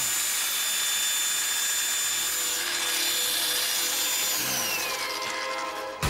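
Electric demolition hammer's motor running free without hammering, a steady hiss with a high whine; a little past four seconds in the whine falls in pitch as the motor winds down.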